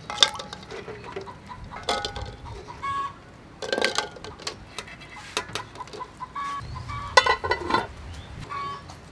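Chickens clucking repeatedly in short calls, with a few sharp metallic clinks of the aluminium pot and lid.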